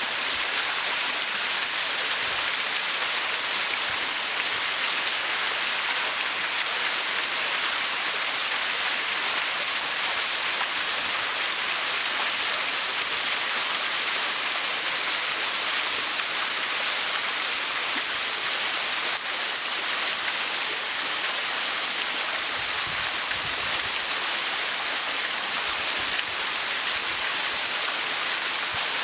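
Waterfall: falling water making a steady, unbroken rush, bright and hiss-like.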